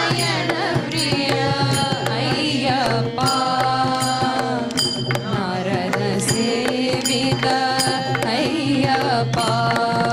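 Instrumental interlude of a Carnatic-style devotional bhajan: a bending melodic line over a steady drone, with regular percussion strokes keeping time.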